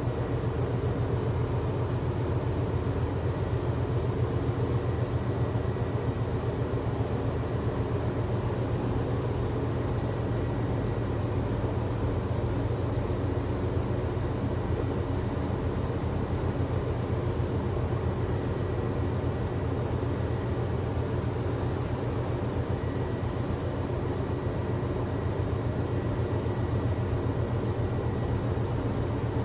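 Steady low drone of a running engine, unchanging throughout.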